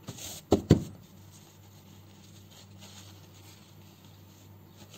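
Two quick knocks against a tabletop about half a second in, from hands handling folded kitchen paper towel. After that, a quiet room with a faint steady low hum.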